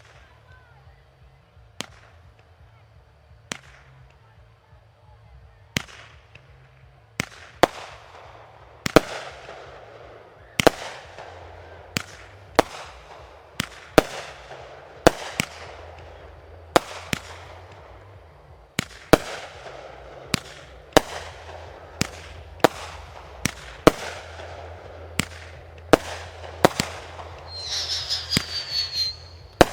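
Aerial fireworks bursting: sharp bangs, a few spaced out at first and then about one to two a second, each followed by a brief crackling trail. Near the end a shrill, wavering whistle rises over the bangs.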